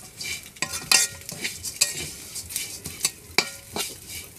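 Metal spatula scraping and clinking against a metal kadai as semai vermicelli is stirred and fried in oil, a few strokes a second, some ringing briefly, over a light sizzle.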